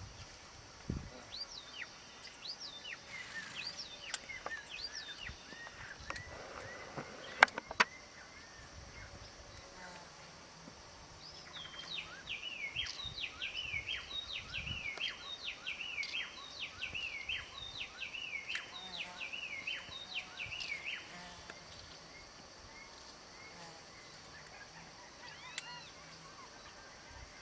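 Several birds calling: scattered chirps and short whistled notes, with a fast, dense run of repeated falling notes from about twelve to twenty-one seconds in. Two sharp clicks come about seven and a half seconds in, over a steady high hiss.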